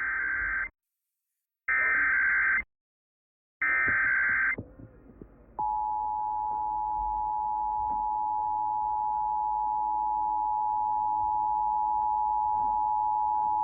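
Emergency Alert System Required Monthly Test signal. First come three bursts of SAME header data, each about a second long with about a second of silence between. About five and a half seconds in, the steady two-tone EAS attention signal (853 and 960 Hz) begins and holds at an even level.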